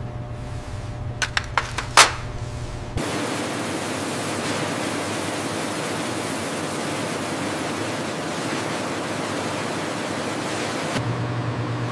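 A few sharp clicks of steel tweezers on a glass petri dish over a low hum, the loudest about two seconds in. About three seconds in, a steady rushing hiss of water sprays rinsing locusts on a perforated stainless-steel conveyor, which stops shortly before the end.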